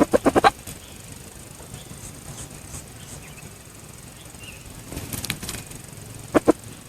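Red junglefowl clucking: a quick run of about five short clucks at the start and two more near the end. A brief rustling burst comes about five seconds in.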